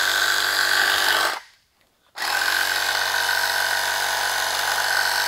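Pittsburgh 63152 12V portable tire inflator's small piston compressor running loud while pumping up a car tire. It cuts out briefly about a second and a half in, then runs on steadily.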